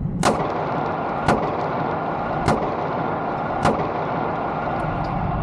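Four single 9mm handgun shots fired at a slow, even pace, a little over a second apart, over a steady background hiss.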